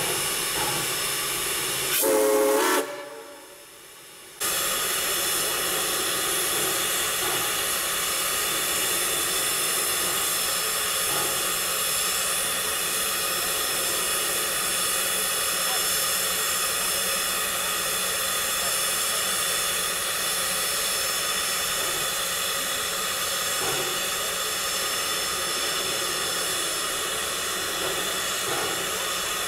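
Steam locomotive standing under steam, hissing steadily. About two seconds in there is a short, loud pitched blast that is cut off abruptly.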